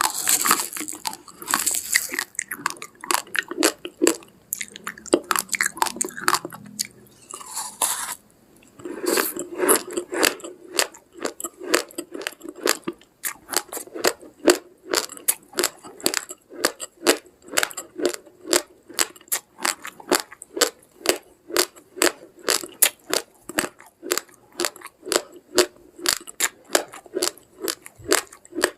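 A person chewing uncooked raw rice grains close to the microphone: sharp dry crunches, irregular at first, then settling about a third of the way in into a steady rhythm of roughly three crunches a second.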